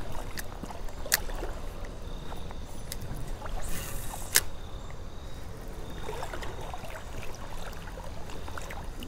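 Creek water splashing and trickling around a wading angler, with a few sharp clicks and a brief hiss about four seconds in.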